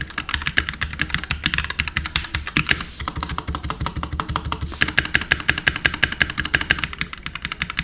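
Fast, continuous typing on a Keychron K4 mechanical keyboard with linear red switches: a rapid run of light keystroke clacks, easing briefly about three seconds in before picking up again.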